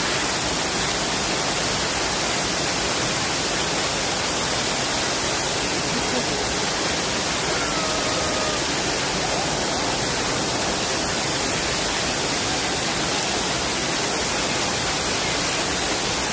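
Steady rushing and splashing of a large fountain: water pouring in a continuous curtain from an overhead circular rim into the basin below.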